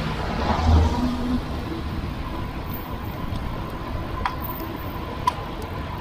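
Wet-road traffic noise heard from a moving bicycle: a car passing close near the start, with tyre hiss on the wet road and a low rumble, then steady road and wind noise with a faint steady whine and a few light clicks.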